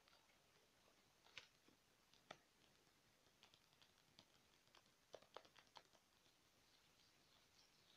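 Fingernails tapping and scratching on a spiral-bound notebook's cover and wire binding, close to the microphone: faint, scattered clicks, with two sharper taps in the first half and a quick run of taps about five seconds in.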